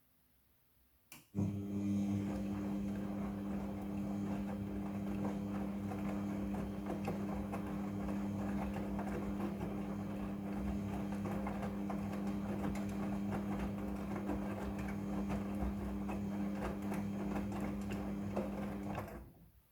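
Front-loading washing machine starting with a click about a second in and running with a steady hum over a busy churning texture, then stopping shortly before the end.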